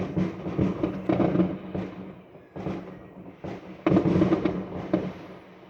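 A fireworks display going off in the distance: a rapid, irregular series of booming bursts.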